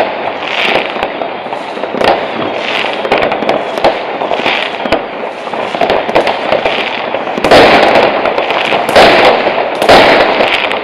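Many consumer fireworks going off across a town at once: a continuous crackle of firecrackers with sharp bangs from rockets and bursts. The noise grows louder about seven and a half seconds in.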